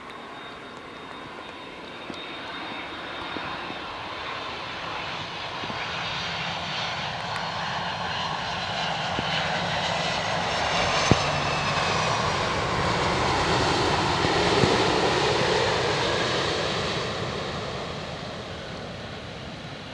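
Jet airliner passing by: the engine noise swells to a peak about fifteen seconds in, with whining tones falling in pitch as it goes past, then fades.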